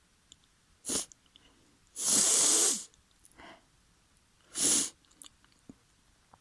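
A person sneezing: one long, loud sneeze about two seconds in, with shorter sharp bursts about a second in and near the end.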